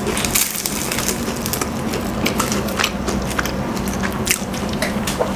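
Crisp, flaky pastry crust crackling and crunching as it is torn apart by hand and chewed close to the microphone, a dense run of short crackles.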